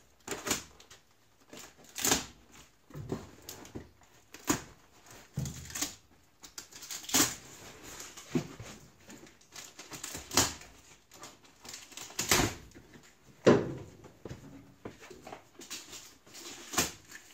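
Knife cutting packing tape on a cardboard shipping box, with tape tearing and the box being handled, in irregular short strokes and scrapes; one heavier knock about three-quarters of the way through.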